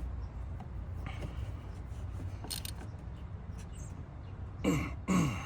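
Hand tools working the engine bolts as they are torqued down: a few light clicks, then two short squeaks falling in pitch near the end, over a steady low hum.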